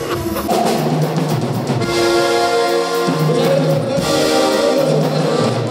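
Band music with horns holding chords over drums and a stepping bass line.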